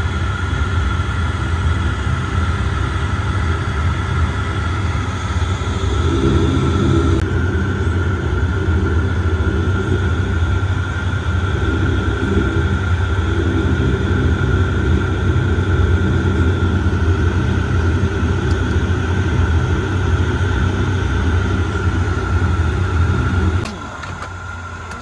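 Steady low drone of a De Havilland Dash 8's turboprop engines and propellers, heard inside the cabin with a steady high whine over it while the aircraft taxis after landing. The level drops abruptly near the end.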